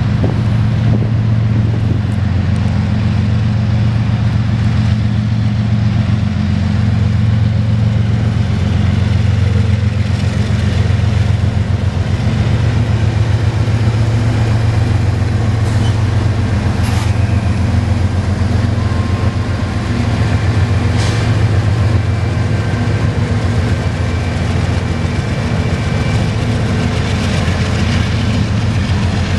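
Diesel-electric freight locomotives passing close by under power: a steady, loud low engine drone, with a few sharp knocks about halfway through.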